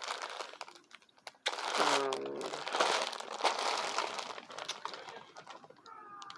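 Packaging from a mail-order parcel crinkling and rustling as it is handled, with bursts of crackling clicks, loudest in the middle.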